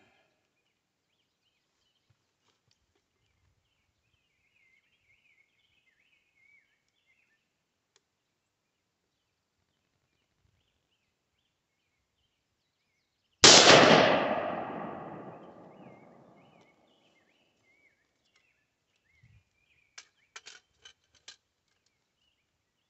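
A single rifle shot from an AR-15-type rifle with an 18-inch stainless .223 Wylde barrel, loud and sudden, with an echo that fades over about three seconds. A few light clicks follow near the end.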